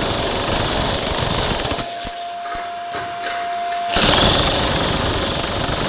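Loud, rapid mechanical hammering of a power tool. It cuts out for about two seconds partway through, leaving only a steady single tone, and then starts again.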